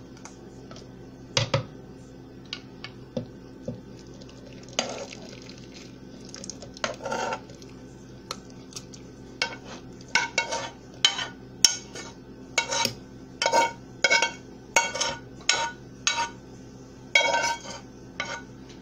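A kitchen utensil clinking and scraping against a pot as soft cooked apples are scooped into a plastic food processor bowl. The knocks ring briefly. They come only now and then at first, then about twice a second over the second half, with a steady low hum underneath.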